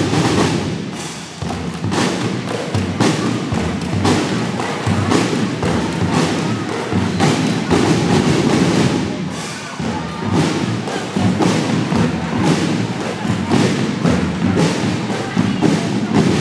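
Marching drum band playing a steady drum cadence on marching snare, tenor and bass drums, echoing in a large hall.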